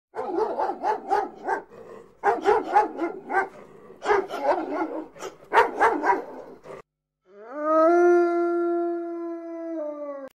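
A dog giving quick runs of pitched yips and barks, about five a second, in four bursts, then one long held howl that rises at its start and holds steady for about three seconds.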